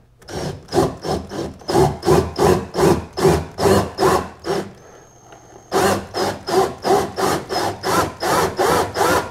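Cordless drill slowly turning a spade bit into a polyethylene kayak hull to cut a pilot hole, the bit scraping the plastic in a rhythmic rasp about two and a half times a second. It stops briefly near the middle, then starts again.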